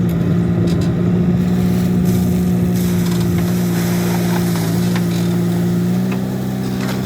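Diesel engine of a JCB 3DX backhoe loader running steadily at working revs, with faint clanks, cutting off suddenly at the end.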